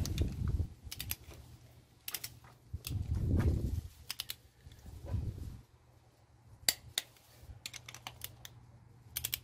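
Ratchet head of a long torque wrench clicking in short runs of a few clicks as connecting-rod cap nuts on a MerCruiser 3.0 L engine are turned down on the first 20 ft-lb tightening pass. Three dull low rumbles come and go, near the start, around three seconds in and around five seconds in.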